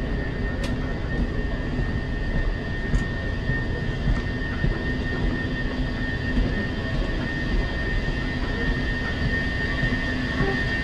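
Moving walkway running: a steady low mechanical rumble with a constant high whine over it and a couple of faint clicks.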